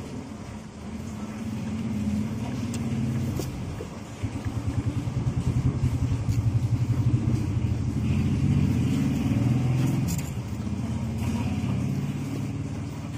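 A motor vehicle's engine running, a low pulsing hum that builds over the first few seconds, is strongest through the middle and eases off near the end. A few faint clicks come from the belt and parts being handled.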